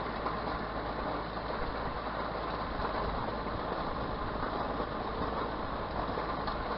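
John Deere 4600 compact tractor's diesel engine running steadily at a light throttle of about 1500 rpm while pulling a hay rake.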